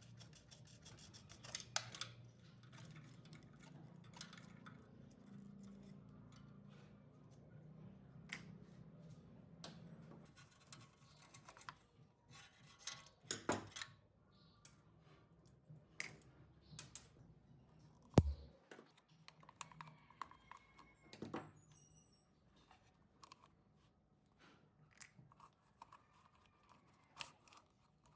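Faint, scattered clicks, taps and scraping of hand work on metal parts, with a low hum in the first ten seconds and one sharper knock about two-thirds of the way through.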